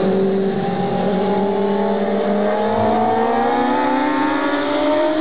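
Race car engines accelerating together as a pack, their pitch rising steadily.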